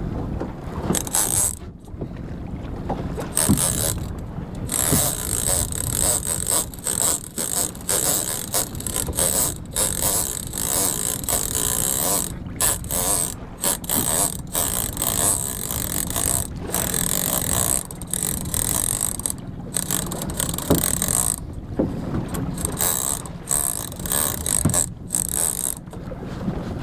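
Shimano Tiagra 30W big-game lever-drag reel working under load against a hooked bluefin tuna, its gears and drag whirring and ratcheting in many short stop-start spells.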